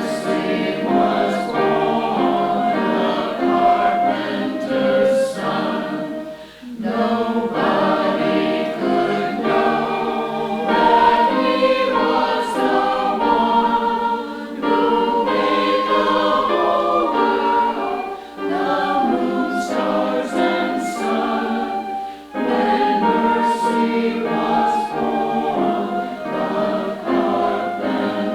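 Church choir singing in harmony, phrase by phrase, with short breaks between phrases.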